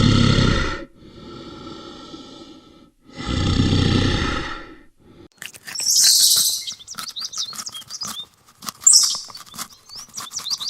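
An animal's deep calls, three in a row with the middle one quieter, followed from about halfway by a bird chirping rapidly with quick high notes.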